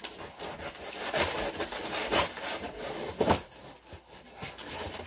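Paper and cardboard packaging rustling and scraping as a parcel is handled and unpacked, with a sharper, louder scrape a little after three seconds in.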